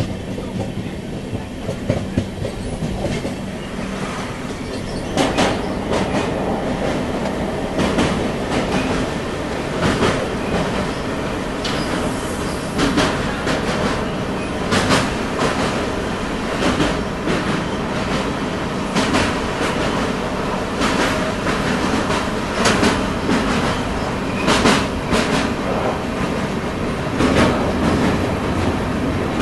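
Passenger train running at speed, heard from an open coach doorway: a steady rumble of the running gear with wheels clicking over rail joints in quick groups every second or two, getting louder a few seconds in.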